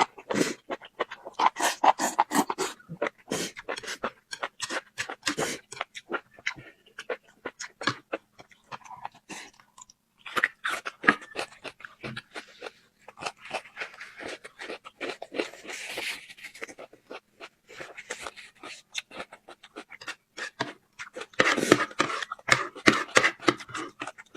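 A person chewing and crunching food, with many short crunches in quick succession.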